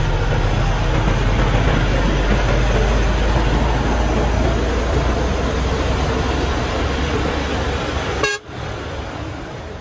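Loaded Hoa Mai dump truck's diesel engine running under way, a steady low rumble with tyre and road noise, heard up close. About eight seconds in comes a short horn toot, and then the sound drops off suddenly.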